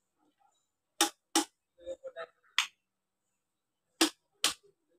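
Switchboard switches clicking sharply, five clicks in all, mostly in pairs about half a second apart, with a little plastic handling rattle between them. No motor hum follows: the mixer grinder does not start on the series test line.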